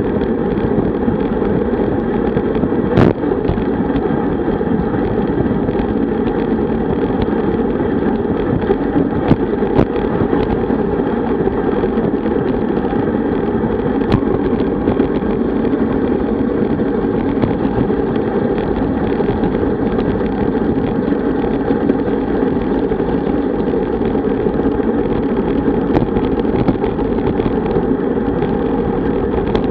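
Steady wind rush over a bike-mounted camera's microphone, with road-bike tyre noise, while riding at about 47 km/h. A few sharp clicks, the clearest about three seconds in.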